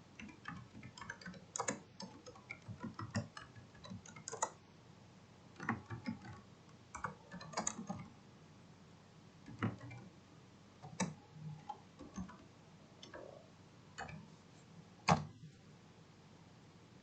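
Irregular clicks and taps of a computer being operated, coming a few at a time with pauses, the loudest about fifteen seconds in.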